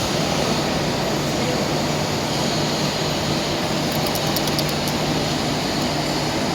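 Steady running machinery with a constant low hum under a dense mechanical noise, with a few faint light ticks about four seconds in.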